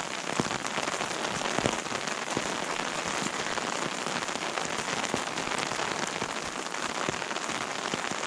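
Steady rain falling on a forest, an even hiss made up of many distinct drops hitting close by.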